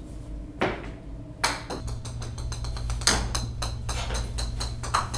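A thin stick swung like a golf club knocks against a wooden floor: four sharp hits with lighter clicks and clatter between them.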